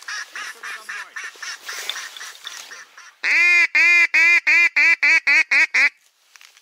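Duck quacking: a run of quacks through the first half, then a loud series of about a dozen quacks that come faster and faster before cutting off suddenly.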